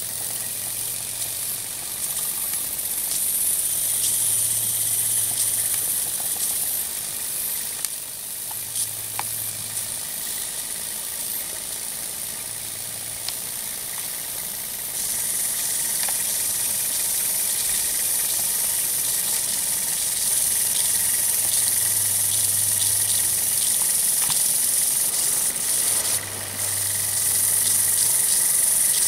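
Microcosm T1B Hero's engine (aeolipile) running: steam hissing from the jets of its spinning brass sphere, with scattered small clicks and a low hum that comes and goes. The hiss grows louder about halfway through and again near the end.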